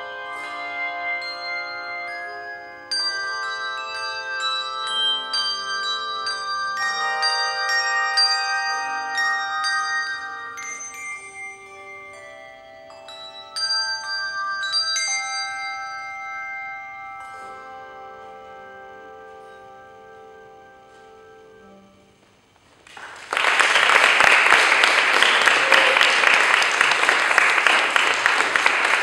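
A handbell choir ringing the closing chords of a piece, many bells struck together and left to ring, the sound dying away to a soft final chord. About 23 seconds in, the audience bursts into applause, louder than the bells.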